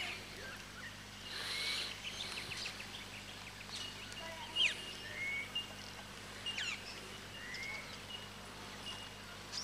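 Several birds calling: scattered short chirps and quick rising and falling whistles, over a faint steady low hum.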